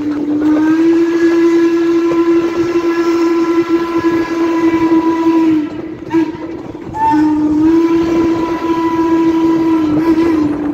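Steam whistle of Chesapeake & Ohio 2-6-6-2 Mallet #1309 sounding two long blasts with a brief toot between them, its pitch bending up a little as each blast opens and sagging as it closes. The train's running noise goes on underneath.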